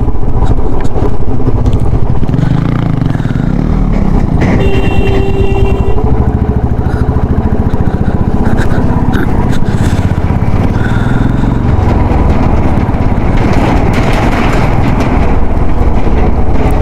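Motorcycle engine running while riding a rough, unpaved mountain track, under a steady rush of wind and road noise with scattered knocks. A short steady tone sounds briefly about five seconds in.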